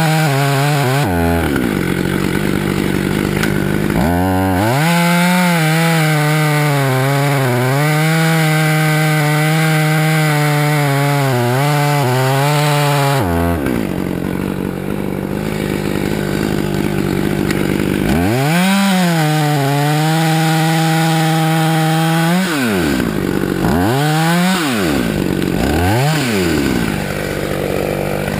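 Husqvarna T540xp top-handle two-stroke chainsaw revving at full throttle through long cuts, its pitch wavering under load, and dropping back to idle between them. Near the end come three quick throttle blips before it settles to idle.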